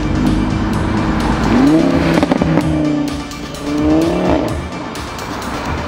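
Cars pulling away one after another, an engine revving up twice, about 1.7 s and 4 s in, over background music with a steady beat.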